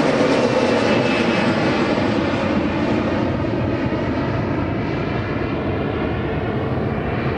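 Turbofan engines of a Flybe Embraer jet airliner climbing away after takeoff: a steady jet roar with a faint whine on top. It slowly fades and grows duller as the aircraft moves off.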